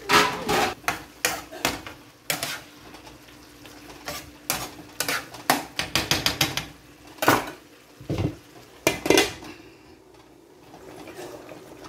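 Metal spatula scraping and clinking against a frying pan as food is stirred, in irregular strokes that stop about nine seconds in. A glass lid is then set on the pan.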